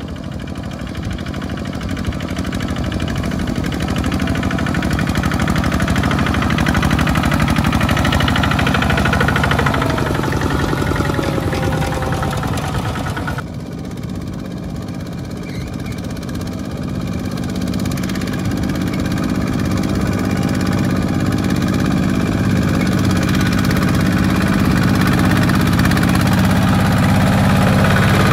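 Two-wheel walking tractor's single-cylinder diesel engine running steadily while pulling a loaded trailer through deep mud. It grows louder, drops suddenly about halfway, then builds again.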